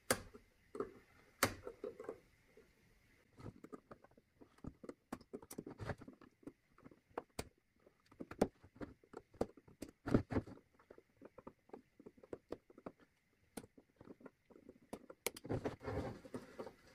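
Pliers gripping, twisting and prying at the spot-welded nickel strips on a Ryobi 40V battery pack's plastic cell holder: irregular small clicks, scrapes and crackles of metal on metal and plastic, with a few sharper snaps, the loudest about ten seconds in.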